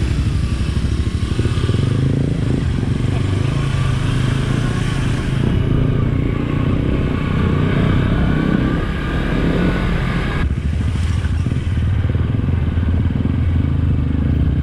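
Motorcycle engine running steadily under way. Its note dips briefly about nine seconds in.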